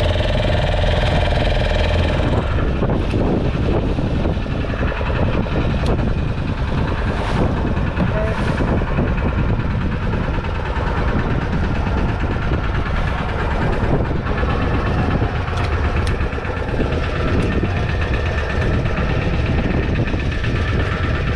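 A small fishing boat's engine running steadily, a dense, even drone with a strong low end.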